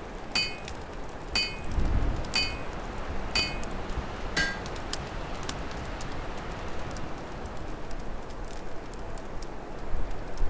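Open fire crackling over the low rush of storm wind. Five short metallic clinks come about a second apart in the first half, the last one lower-pitched.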